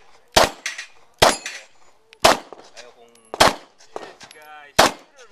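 Five 9mm pistol shots about a second apart, each followed a moment later by the clang of a steel plate target being hit.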